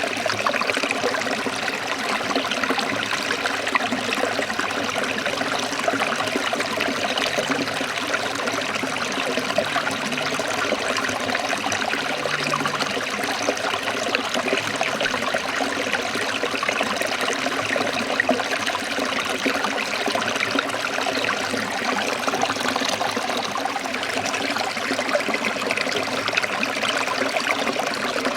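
Forest stream trickling and splashing over rocks: a steady, even rush of running water.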